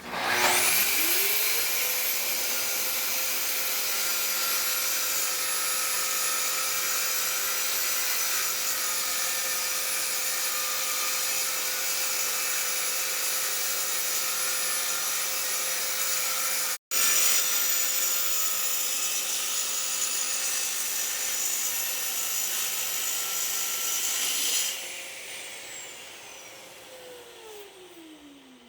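Track saw starting up and running through a long cut. The loud cutting noise stops about 25 s in, and the saw's motor winds down with a falling whine near the end. The sound drops out briefly about two-thirds of the way through.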